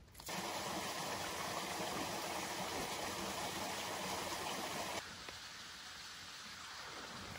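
Shallow seawater trickling and washing over rocks at the shoreline, a steady rushing. About five seconds in it cuts suddenly to a quieter, softer wash.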